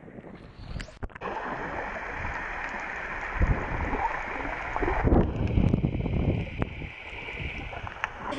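Water sloshing and gurgling at a camera held at the surface, turning to the muffled rushing of water about a second in as the camera goes under, with a few sharp knocks and low rumbles of water moving against it.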